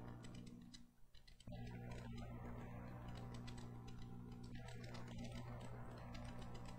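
Faint steady electrical hum from the sound system, weaker for the first second and a half and then steady, with a scatter of soft, quick high clicks over it.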